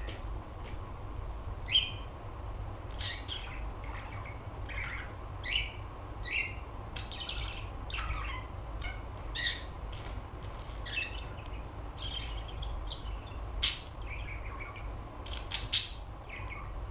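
Pet budgerigar chirping and squawking in short, irregular calls, with a few sharp, loud chirps standing out.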